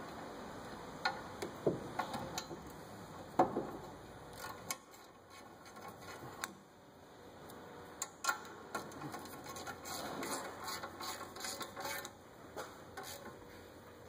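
Socket ratchet clicking on bolts at a car's rear brake caliper, with scattered sharp metal clinks and knocks from the wrenches. The loudest knock comes about three and a half seconds in, and a quick run of ratchet ticks follows in the second half.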